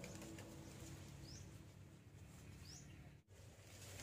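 Near silence: faint outdoor ambience with two short, high, rising bird chirps about a second and a half apart.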